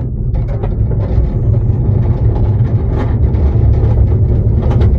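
Small railway coach running along the track behind its locomotive. There is a steady low rumble from the wheels and running gear, with scattered clicks and knocks, and it gets a little louder over the first second.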